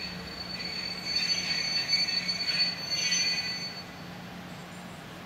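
CJ Gem 4/4 401 locomotive rolling slowly into the station, its wheels squealing high-pitched through the curve, loudest from about one to four seconds in, over a steady low hum.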